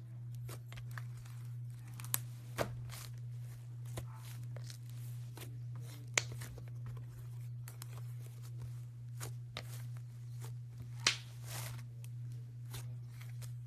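Slime being mixed and squished, making irregular sticky clicks and pops, with a steady low hum underneath.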